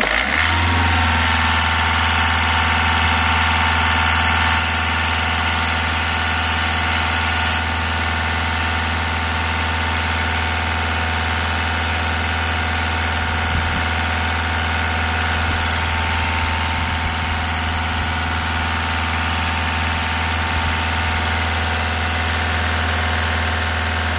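VW Polo TDI diesel engine revved up and held at a steady raised speed, a little louder for the first few seconds. This is done to push air out of the cooling system after a water pump change, with coolant flowing back from the return hose as a sign that the new pump is circulating.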